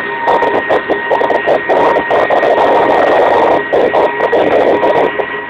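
Kamov Ka-26 helicopter heard from inside the cabin: its twin radial piston engines and coaxial rotors running loud and steady, with a steady high whine on top.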